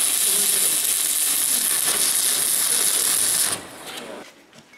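Stick (arc) welding on steel: the electrode arc crackling and hissing steadily, then cutting off about three and a half seconds in as the arc is broken.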